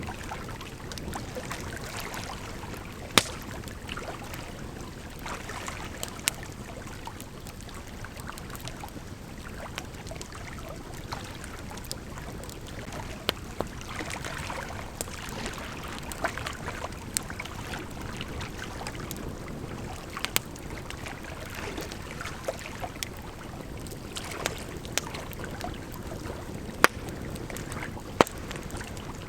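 Wood campfire crackling, with irregular sharp pops, a few of them much louder, over the steady rush of a gently flowing river.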